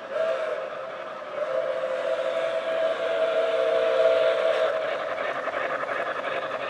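O-gauge model steam locomotive blowing its whistle as it passes: a short blast, then a long one of about three seconds. After the whistle stops, the freight cars rumble and clatter over the three-rail track.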